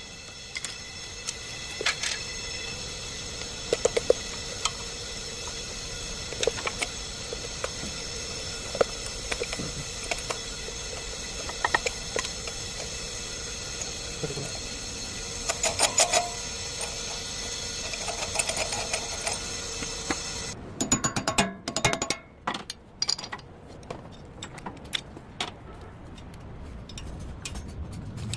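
A steady mechanical hum with scattered sharp metallic clicks and knocks, like tools and parts being handled. The hum stops about twenty seconds in, followed by a quick run of clicks and knocks.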